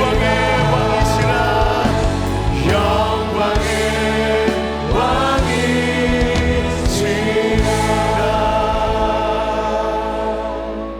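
A church praise team sings a gospel worship song with instrumental accompaniment. Near the end it settles on a held final chord that fades out.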